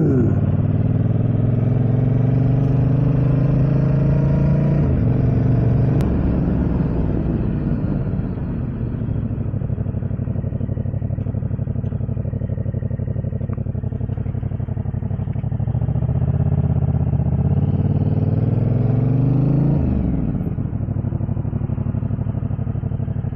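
Motorcycle engine under way, with wind and road noise. The engine's pitch climbs as it accelerates for about five seconds, then drops as it slows. It runs lower for a stretch, climbs again about three-quarters of the way through, and falls back near the end.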